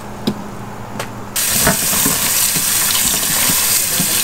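Kitchen tap turned on about a second and a half in, water running steadily into a bowl of cut napa cabbage in a stainless steel sink as the leaves are washed by hand. Before that, a few light clicks of leaves being handled.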